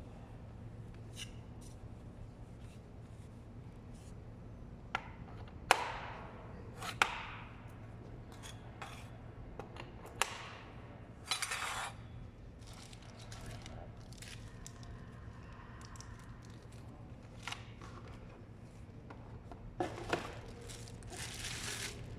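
Scattered clicks, clinks and knocks of hard objects being handled, with short rustles, over a faint steady low hum.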